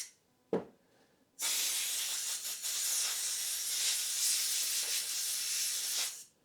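A single short knock, then a pressurised jet hissing steadily for about five seconds as the machined tool is cleaned.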